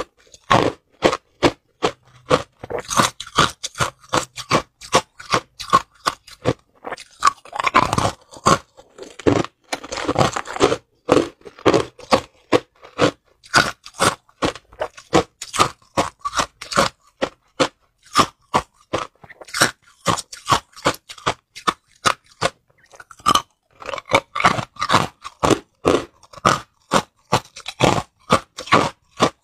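Hard, clear ice cubes crunched and chewed between the teeth: a steady run of sharp, loud crunches, about two to three a second.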